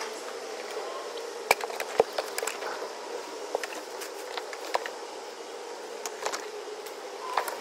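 Shopping bags and wire baskets being loaded into a car's rear cargo area: plastic bags rustling, with several sharp knocks and clatters, the loudest about one and a half and two seconds in, over a steady hum.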